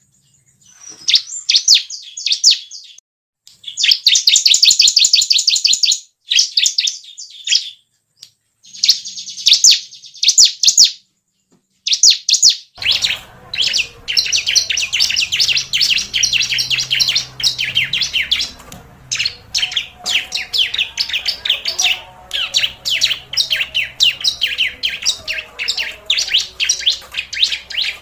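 Prinia (ciblek) lure song: loud, rapid chattering trills of quickly repeated high notes. It comes in short bursts with silent gaps at first, then runs almost unbroken from about halfway, over a faint background hum.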